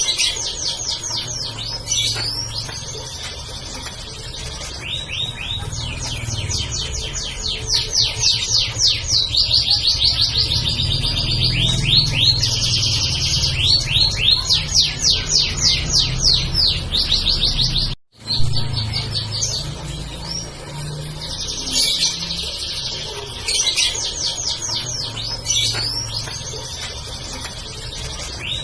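Domestic canary singing a long, continuous song of fast rolling trills and chirps, broken by a brief cut-out about 18 seconds in.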